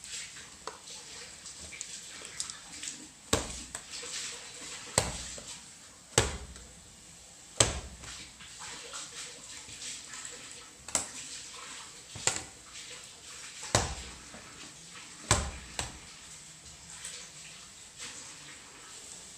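Homemade slime being kneaded and squeezed in the hands: wet squelching and crackling, broken by sharp snaps or pops about every one to one and a half seconds as it is folded over.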